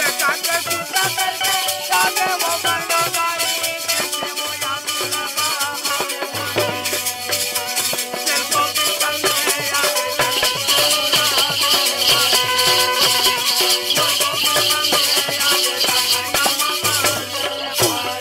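Folk ensemble playing an instrumental passage: a harmonium melody over tabla and drum beats, with a dense, steady jingling rattle running through it that grows brighter about ten seconds in.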